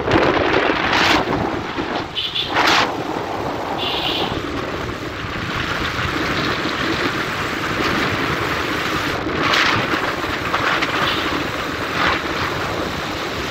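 Wind buffeting the microphone of a phone carried on a moving motorcycle, with the bike's engine running underneath and a few louder gusts. Two short high-pitched tones sound a few seconds in.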